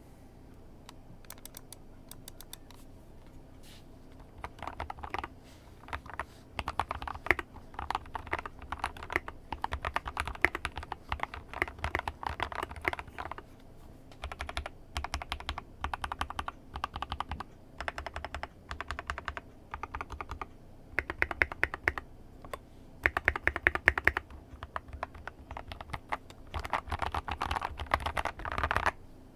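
Typing on a modded Epomaker EP84 mechanical keyboard fitted with Akko keycaps: a few scattered keystrokes, then, from about four seconds in, bursts of rapid key clicks with short pauses between them.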